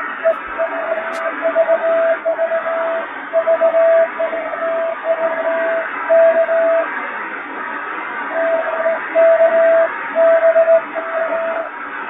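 Morse code telegraphy heard through a shortwave radio receiver: a steady mid-pitched tone keyed on and off into dots and dashes over a bed of radio hiss, with a pause of about a second and a half about halfway through.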